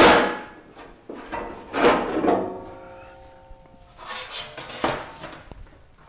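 Thin sheet-steel panels being lifted out and handled: a sharp metallic clank at the start, another about two seconds in that rings on with several steady tones for over a second, then lighter clattering about four seconds in.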